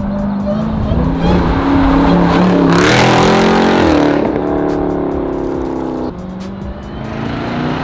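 Supercharged 6.2-litre Hemi V8 of a Jeep Grand Cherokee Trackhawk fitted with a new cold air intake, revving up to a loud peak about three seconds in and falling back.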